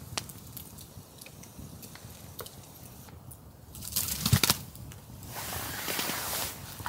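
Small wood campfire crackling with scattered sharp pops. About four seconds in comes a louder burst of rustling noise with a thump, then a steady hiss for a second or so.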